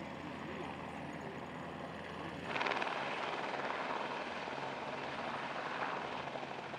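Helicopter hovering low, its rotor and engine making a loud steady noise that comes in abruptly about two and a half seconds in, after a quieter steady background noise.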